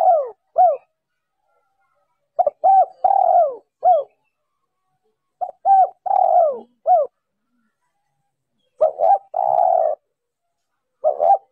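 Spotted dove cooing: phrases of two or three short arched coos and then a longer rolling coo, repeated about every three seconds.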